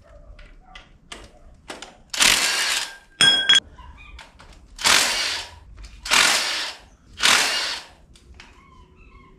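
Cordless impact wrench hammering in four bursts of about a second each, with a short high whine of the tool spinning between the first two. The wrench is working bolts loose while a motor mount comes off a Chevy 283 V8 block.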